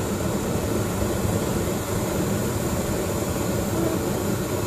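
Steady, loud rushing roar of a tall flame of powdered dry fuel being blown through a propane torch flame and burning in a column.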